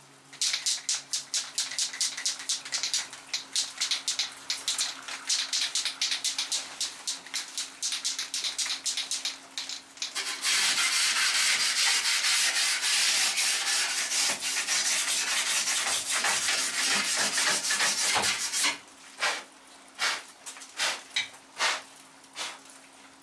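Aerosol can of primer spraying onto bare steel: many short rapid hisses for about ten seconds, then one continuous spray for about eight seconds that cuts off suddenly, followed by a few short bursts.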